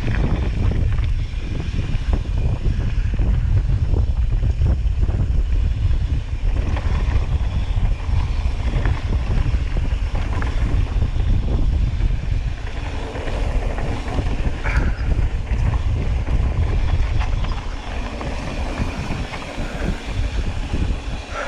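Wind buffeting the camera on a mountain bike running fast downhill, a deep rumble under many short knocks and rattles from the bike and tyres on the rough dirt trail.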